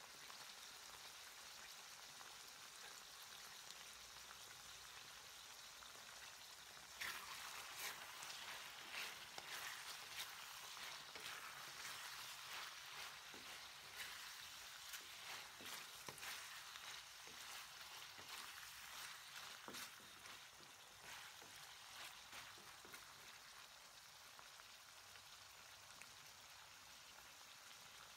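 Pork and carrot pieces sizzling in a wok in a little teriyaki sauce. From about seven seconds in, a spatula stirs and scrapes against the wok with scattered clicks over a louder sizzle, which settles back to a steady, softer sizzle for the last several seconds.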